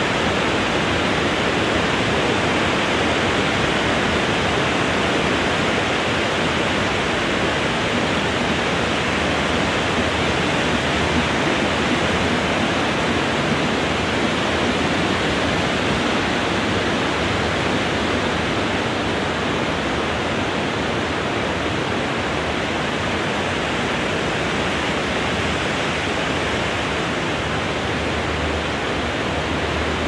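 Wind blowing through trees, an even, steady hiss with no gusts or breaks.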